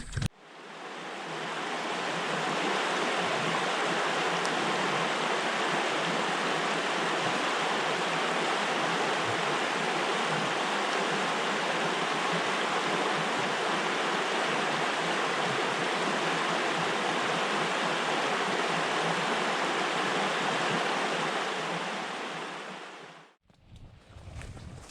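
Steady rushing of stream water, fading in over the first couple of seconds and fading out near the end before cutting off.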